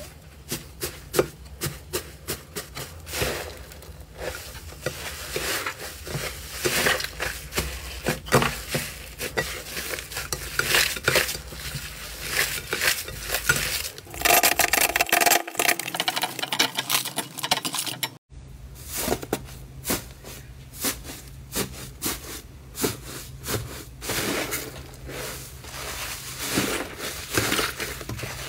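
Hands squeezing, tearing and crumbling a thick, crumbly 'tofu dregs' slime in a bowl: a dense run of sharp crackles and popping clicks. The sound breaks off briefly about 18 seconds in, then the crackling goes on as another slime is kneaded.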